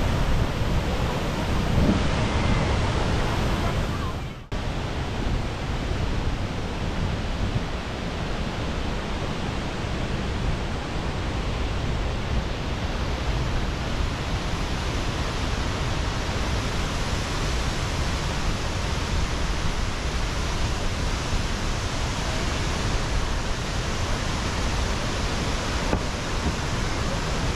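Large waterfall rushing: a steady, even wash of falling-water noise. It drops out briefly at a cut about four and a half seconds in, then carries on unchanged.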